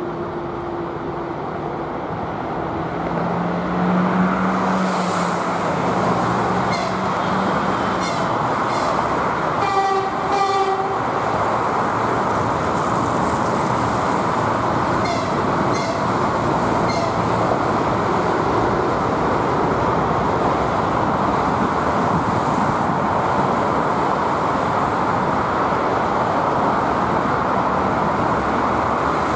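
Electric passenger train rolling across a steel truss bridge: a steady rumble, with clusters of rapid wheel clicks over rail joints. One short horn toot comes about ten seconds in, and cars pass on the road nearby.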